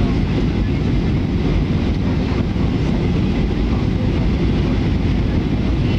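Steady low rumble of jet engines and rushing air heard inside a passenger airliner's cabin, descending on approach to land.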